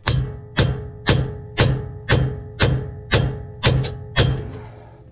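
About ten evenly spaced hammer blows, roughly two a second, each ringing briefly, with a quick double strike near the end: a bearing race being driven into a differential housing.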